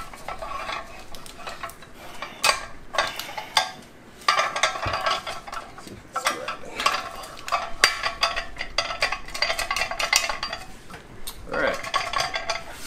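Metal scraping and clinking from a slide-hammer bearing puller being turned and worked down into a blind-hole bearing in a transfer case. It comes as several bouts of grinding scrapes broken by sharp clicks.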